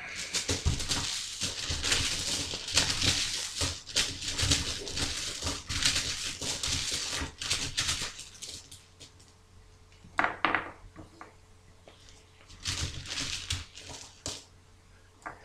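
Dice rattling and clattering as a hand rummages and shakes them in a bag. About ten seconds in and again around thirteen seconds come short bursts of dice clacking as they are rolled out onto the table.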